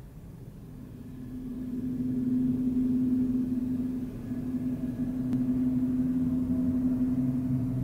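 Metal-rod musical sculpture played by hand, sounding a sustained low drone that swells in over the first two seconds and then holds steady. A second, lower tone joins near the end.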